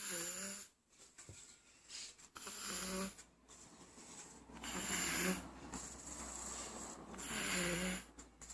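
A one-year-old baby snoring very loudly in sleep: four snores, about one every two and a half seconds, each a low buzzing tone over a breathy hiss.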